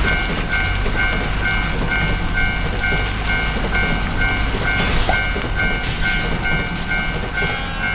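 Japanese railroad-crossing warning bell ringing its steady "kan-kan" about twice a second, over the low rumble of a train passing.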